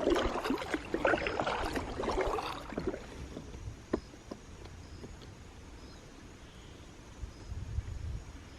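Kayak paddle strokes splashing and dripping in lake water for the first few seconds, then the boat gliding quietly with a few small drips and ticks. A brief low rumble comes near the end.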